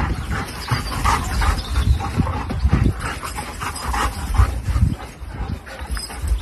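A German Shepherd and a smaller grey dog play-fighting, with many short yips and whines.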